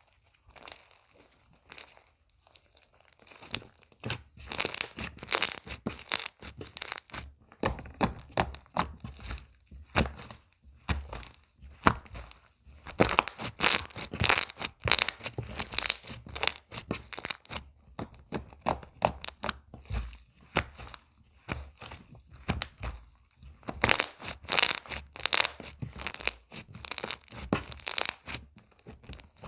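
Hands squeezing, stretching and pressing slime, giving dense runs of crackling, popping clicks with short pauses between them.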